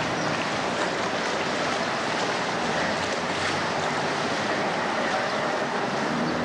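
A motorboat running along a canal, with steady water noise and wind on the microphone.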